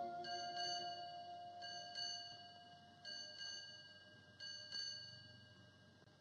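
A clock's bell striking four pairs of strokes, each pair ringing out and fading: the ship's-bell pattern for eight bells. The tail of a held orchestral chord fades away under the first pairs.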